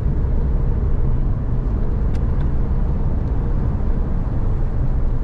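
Steady engine and tyre drone heard from inside the cab of a moving truck on a paved road, with a faint steady hum and a couple of faint ticks about two seconds in.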